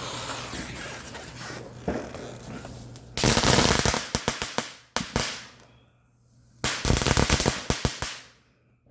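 Firecrackers going off: a hissing spray for about three seconds, then a fast run of crackling pops, a brief quiet gap, and a second run of rapid pops that dies away near the end.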